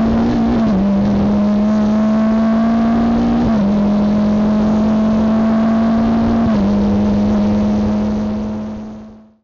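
Race car engine at full throttle, heard from inside the cockpit. It climbs in pitch through the gears, with three upshifts about three seconds apart where the pitch drops, and fades out near the end.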